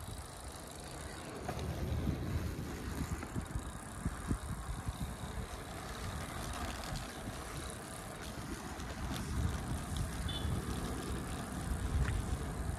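A road bicycle rolling along a tarmac lane, its tyres giving a steady road noise under an uneven rumble of wind on the microphone.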